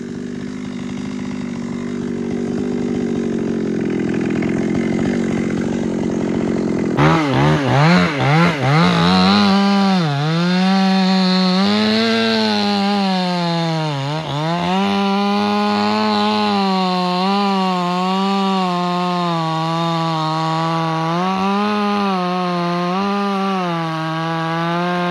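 Two-stroke chainsaw running at high revs. About seven seconds in it comes in much louder, with a few quick throttle blips. It then holds under load while cutting into the eucalyptus wood, its pitch sagging and recovering a couple of times.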